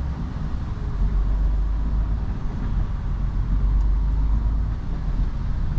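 Inside a MAN lorry cab: the diesel engine's steady low rumble and road noise as the truck moves slowly.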